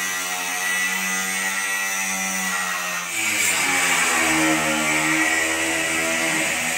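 Angle grinder with a cutoff wheel cutting through seized steel bed bolts: a steady motor whine over the hiss of the wheel on metal. About three seconds in, the whine shifts in pitch and the grinding hiss gets louder.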